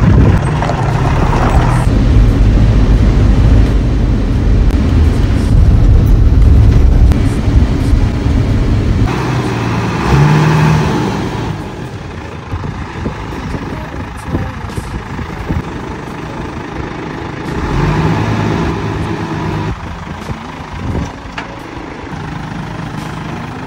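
Crane truck's diesel engine running, loud for about the first ten seconds, then quieter, with scattered knocks.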